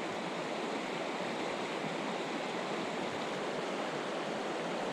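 Creek water running steadily, an even rush with no breaks.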